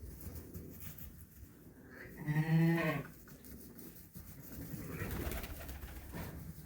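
A sheep in the lambing barn bleats once, a low call of just under a second about two seconds in. Fainter low noise follows a few seconds later.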